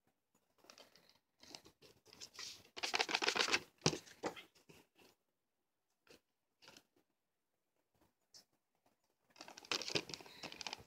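Plastic shrink wrap crinkling and tearing as it is pulled off a Blu-ray case. It comes in bursts, the longest and loudest about three seconds in and another near the end, with a few soft clicks of the case being handled in between.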